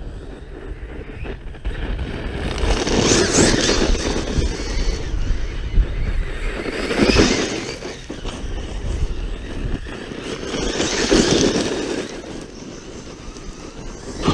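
Arrma Kraton V4 6S RC monster truck running on gravel: its brushless motor whines and its tires hiss and crunch over the stones. The sound swells and fades three times, about four seconds apart, as it speeds up and slows down.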